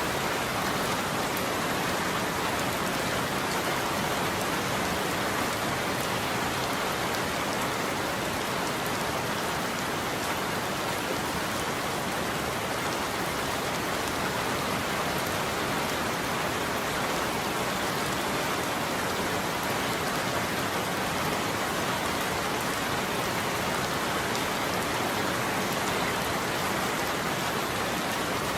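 Steady heavy rain falling, an even dense hiss of drops on a surface with no thunder clap.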